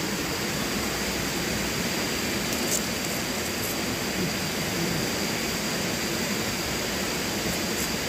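Steady rush of flowing river water, an even hiss that does not change, with a faint steady high-pitched tone above it.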